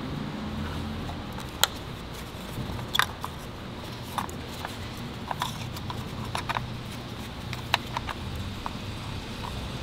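Irregular sharp plastic clicks and taps from engine wiring-harness connectors and wires being handled and unplugged, over a steady low hum.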